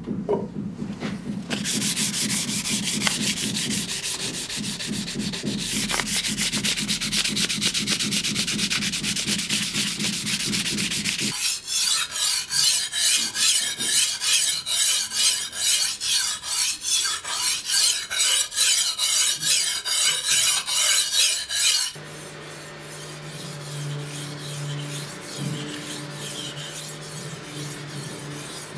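Steel knife blade being rubbed with an abrasive in back-and-forth strokes. A dense, fast scraping gives way about eleven seconds in to louder strokes, about two a second. After about 22 seconds it turns to a quieter rubbing over a low hum.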